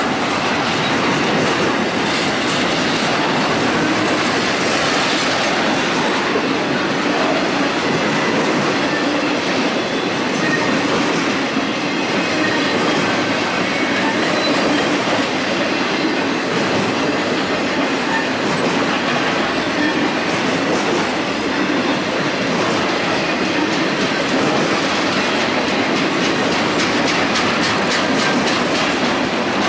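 Double-stack intermodal freight train's well cars rolling past: a steady rumble and clatter of steel wheels on rail, with a faint wheel squeal now and then.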